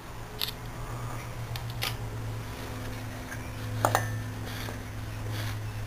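A few light metallic clicks and taps from compressor parts being handled, the loudest about four seconds in, over a steady low hum.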